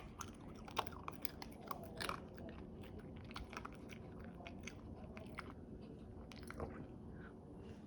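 A dog chewing and crunching food, with quick sharp crunches that come thickest in the first two seconds and then slow to scattered bites.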